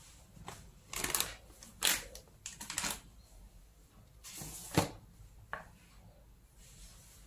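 Scattered short rustles and taps of hands working spice powder into eel pieces in an aluminium pot, the sharpest tap coming nearly five seconds in.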